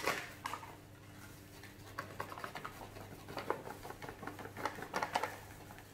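Flour poured from a paper bag into a cup: soft crinkling of the bag and a light patter of flour, in scattered small rustles, with a knock right at the start.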